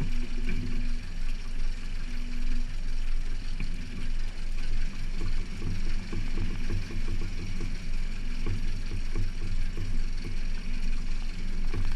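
Boat's outboard motor idling in reverse, an uneven low rumble.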